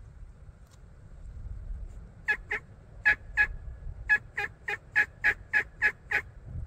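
A series of wild turkey yelps: two pairs of short notes, then a run of about eight evenly spaced yelps at roughly three a second, loud and close.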